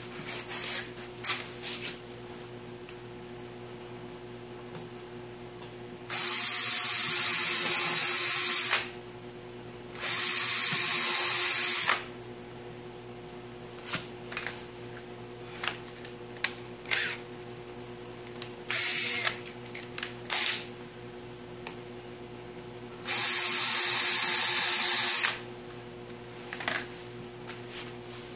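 Cordless drill running in three steady runs of two to three seconds each, driving a screw through the hub flange of a truck brake drum into the stand's pipe column, with two short spurts and light clicks of handling between runs.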